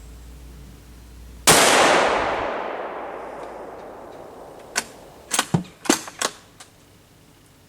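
A single shot from a bolt-action Ruger American Ranch rifle in 5.56 NATO about a second and a half in, its report fading out over about two seconds. A few seconds later comes a quick run of sharp clicks and clacks as the bolt is worked for the next round.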